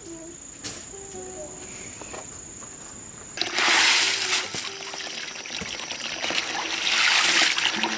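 Water starts running or pouring suddenly about three and a half seconds in and keeps splashing steadily, getting louder near the end.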